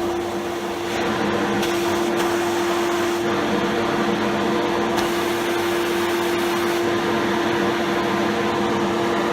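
Workshop dust collector running steadily: a continuous rush of air through the impeller and hose, with a constant motor hum tone.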